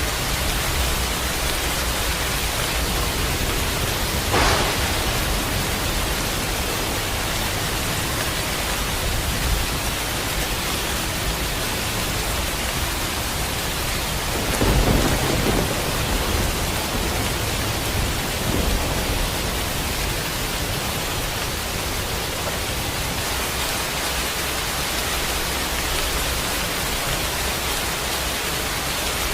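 Steady rain falling, with a brief sharp crack about four seconds in and a louder burst of thunder about halfway through.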